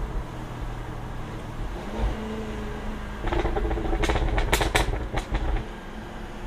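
Jaguar F-Type R's supercharged 5.0-litre V8 running, its pitch rising about two seconds in. About three seconds in it gets louder, with a handful of sharp exhaust pops and crackles around the middle of the stretch before it settles back.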